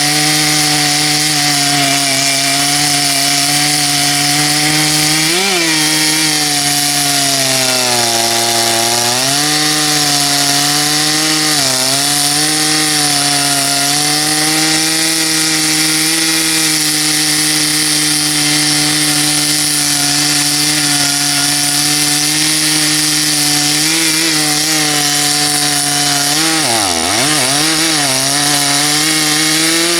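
Stihl MS 461 two-stroke chainsaw running at full throttle, pulling a 36-inch bullnose bar through a cut. The engine note sags briefly a few times as the long bar loads it, and bogs deepest near the end.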